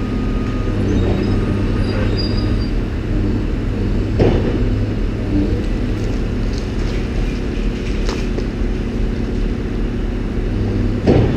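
Diesel engines of demolition excavators running steadily, with a sharp knock of debris about four seconds in and a louder one near the end.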